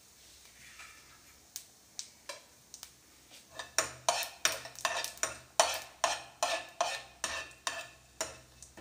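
A steel spoon stirring cumin seeds as they roast in oil in a nonstick frying pan. A few light taps come first; from about three and a half seconds in, quick scraping strokes against the pan follow at about three a second.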